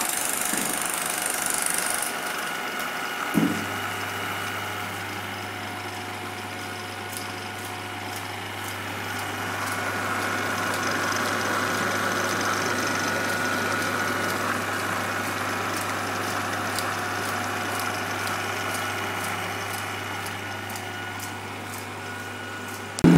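1950s Marín film projector running, its motor, belts and film transport giving a steady mechanical whirr. A click about three seconds in is followed by a steady low hum.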